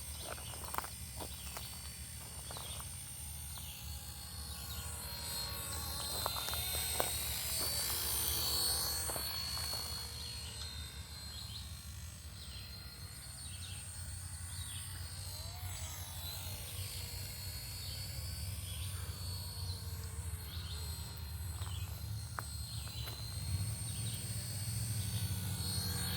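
Radio-controlled model helicopter flying, its rotor and motor giving a steady high whine that wavers and swells as the helicopter moves about, over a low steady rumble.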